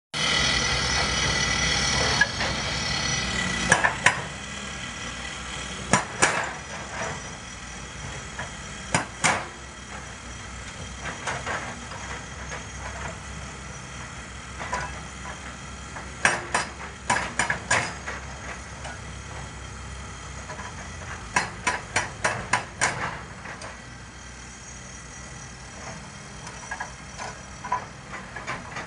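Volvo crawler excavator's hydraulic breaker hammering quarry rock. It runs loud and steady for the first four seconds, then strikes in short bursts of sharp blows every few seconds, over the low steady running of the diesel engine.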